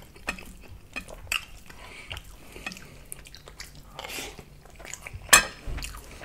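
A wooden spoon scooping and scraping jambalaya in a glass bowl, with small clicks and taps, then close-miked chewing of the rice. About five seconds in comes a single sharp clack, the loudest sound, as the spoon is set down against the bowl.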